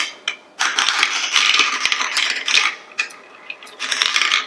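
Hard plastic pieces of a Q-BA-MAZE marble maze clicking and rattling against each other in rapid clatters: a long spell starting about half a second in and a shorter one near the end.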